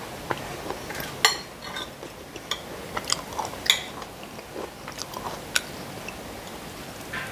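Close-up eating sounds: a metal spoon and fork scrape and clink on a ceramic plate, with about half a dozen sharp clicks scattered through, over soft chewing.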